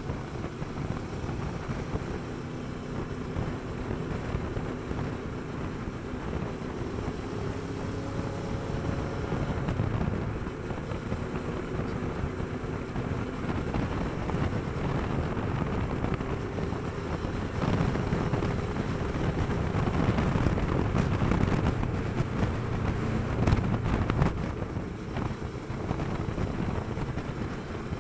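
Kawasaki Versys 650's parallel-twin engine running while the bike is under way, mixed with wind rushing over the microphone. It gets louder for several seconds in the second half, then eases back.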